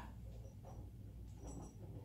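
Faint squeaks from a hand-held pipe cutter being turned around a short shower extension pipe to cut it to length: a few short, high chirps spread through the moment over a low steady hum.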